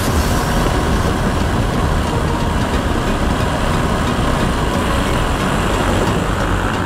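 Paramotor engine running in flight, with heavy wind noise buffeting the camera's microphone.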